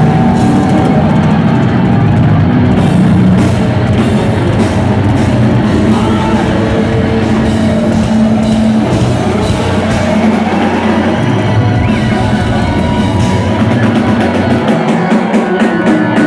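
Live heavy rock band playing loud: drum kit, distorted electric guitar and bass, with rapid drum hits near the end.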